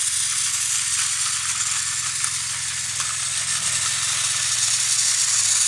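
Two motorised Thomas & Friends toy trains running on plastic track: a steady whir of their small motors with a continuous rattle of plastic wheels and trucks clattering along the track.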